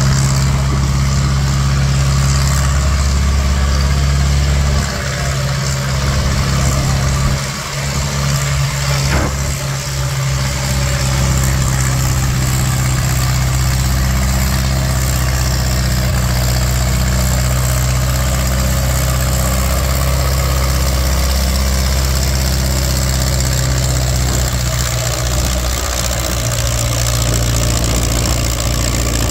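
Antique farm tractor's engine running at a steady pitch under load as it pulls a weight-transfer sled down the track.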